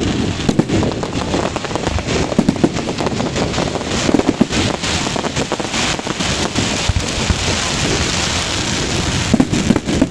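Fireworks display: a rapid run of aerial shell bursts with dense crackling, the crackle thickest through the middle.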